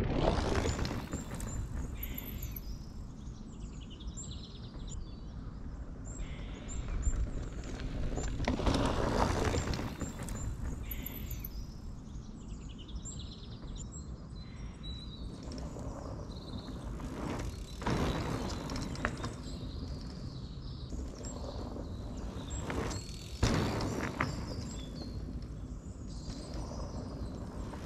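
Wind rumbling on the microphone with small birds chirping and tweeting in the trees, swelling louder a few times. The start holds the louder sound of a mountain bike rolling away over the dirt trail.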